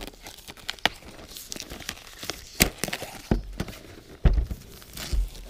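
Plastic wrapping and a paper leaflet handled while unpacking a box: crinkling and rustling, with a few sharp crackles and light knocks.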